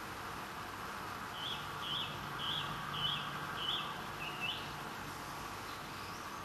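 A bird calling: a run of six short, high chirps about half a second apart, over a steady outdoor hiss.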